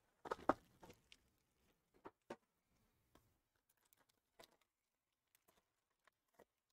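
Plastic wrap being torn and pulled off a Topps Triple Threads hobby box, a brief crinkling rip about half a second in, followed by faint scattered clicks and rustles as the cardboard box is opened.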